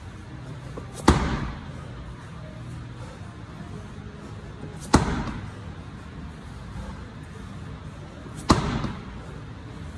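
Slam ball slammed onto the gym floor three times, one every three and a half to four seconds, each a sharp thud with a short echo in the room.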